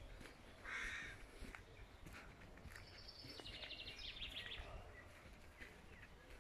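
Footsteps on a dirt towpath at a walking pace, with birdsong: a short call about a second in and a fast trill lasting over a second near the middle.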